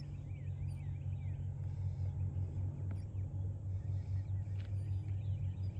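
Low, steady hum of a boat's motor pushing the boat at slow speed, with faint bird chirps in the first second.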